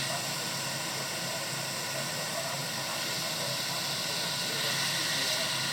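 Hot air rework station blowing a steady hiss of air.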